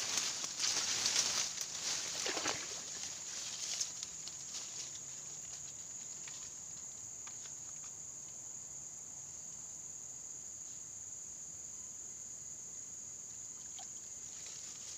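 Steady high-pitched chirring of insects, with a few seconds of louder rustling noise at the start.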